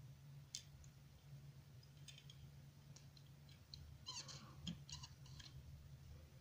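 Faint clicks and light rustles as fingers handle a small die-cast metal toy car and set it down on paper, most of them about four to five and a half seconds in, over a low steady hum.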